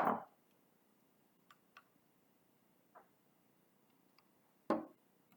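A few sharp clicks and knocks of kitchen utensils being handled while measuring ingredients: a loud click at the start, faint ticks in the middle, and another knock near the end, with hush in between.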